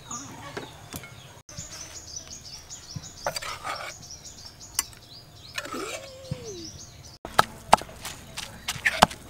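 A bird chirping in a fast run of high repeated notes for several seconds. About seven seconds in, a pestle starts pounding food in a mortar with quick sharp knocks, the loudest sound.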